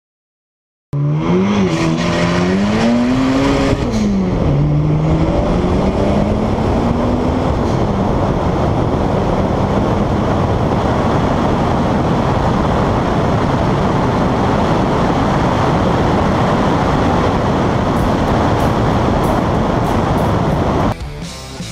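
Turbocharged VW Corrado 16-valve engine at full throttle down a drag strip, starting about a second in: the revs climb, drop at a shift about two seconds in, climb and drop again at about four seconds, then pull on. From about eight seconds on, a steady rush of wind over the microphone covers the engine, and the sound drops off sharply near the end.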